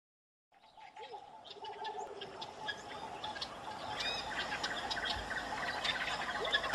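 Many birds chirping and calling together, fading in about half a second in and growing louder.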